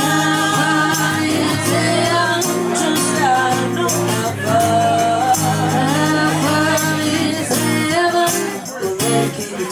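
Live band music with long held notes that bend in pitch over a steady low accompaniment, thinning out near the end.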